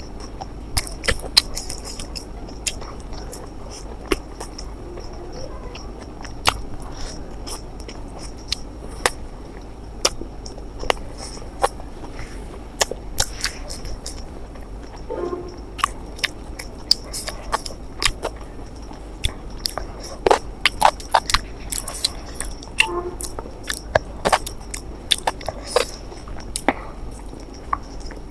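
A person eating close to the microphone: chewing and biting, with many short, sharp mouth clicks and smacks at an uneven pace. A faint steady high-pitched hum runs underneath.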